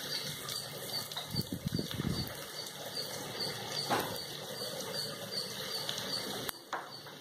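Wooden spatula stirring and scraping frying onion-tomato masala in an aluminium pressure cooker, with a single sharp knock about four seconds in.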